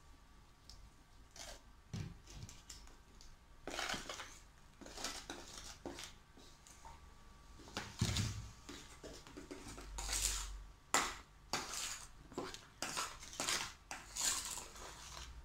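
Spoons scraping and clinking against a metal mixing bowl and a ceramic plate in irregular strokes, as a foamy slime of white glue and shaving foam is stirred with contact lens solution worked in. The strokes come more often in the second half.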